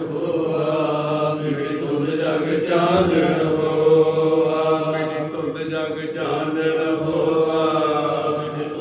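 A man chanting a Sikh prayer into a microphone in a steady, even-pitched recitation with long held notes.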